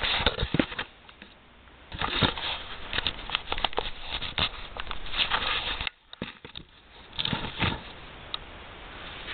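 Handling noise: irregular clicks, taps and rustling as metal parts are fitted onto a brake lathe by hand and the hand-held camera is moved about, with a brief lull about six seconds in.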